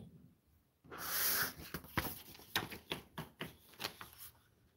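A sheet of grid paper handled on a cutting mat: a brief hiss about a second in as it slides, then irregular crackling and crinkling as it is lifted and bent over to be folded in half.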